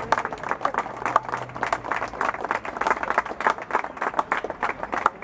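A small group of people applauding: many separate hand claps overlapping irregularly.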